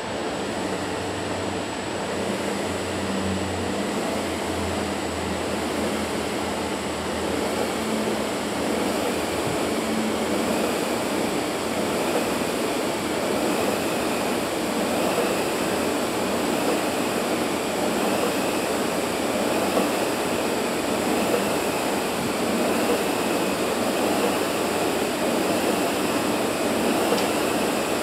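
Concept2 SkiErg's flywheel fan spinning under repeated double-pole pulls: a steady rush of air that grows a little louder as the pace builds.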